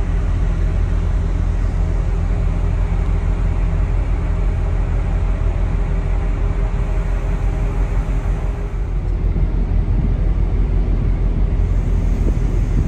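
Steady low rumble of a large car ferry's engines and onboard machinery running at the berth, with a faint hum over it.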